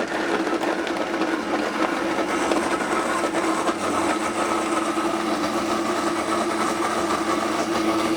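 Vitamix blender running steadily with a constant whine, grinding frozen mixed berries in milk.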